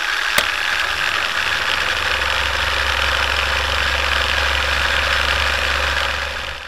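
Film projector running with a steady mechanical whir over a low hum, with one sharp click about half a second in, fading out at the end.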